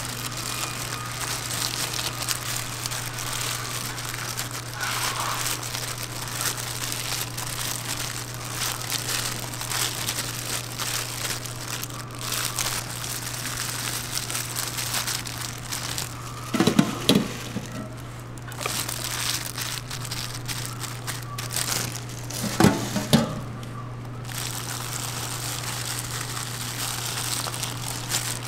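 Thin plastic disposable gloves rustling as hands scatter shredded cheese and lay pepperoni on a pizza base, over a steady low hum. Two short louder sounds break in about two-thirds of the way through and again a few seconds later.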